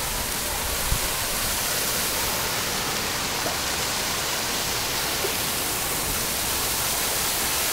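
Water fountain jets spraying and splashing into a pool: a steady rush of falling water.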